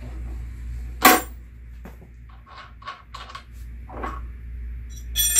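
Hands working on a Dobsonian telescope base's centre bolt and nut: one sharp knock about a second in, then a string of smaller clicks and scrapes, and a metallic clink that rings briefly near the end.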